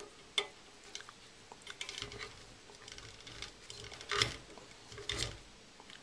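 Light handling noises around a ceiling-fan alternator: a few irregular soft clicks and knocks, with a louder rustle about four seconds in and another about a second later.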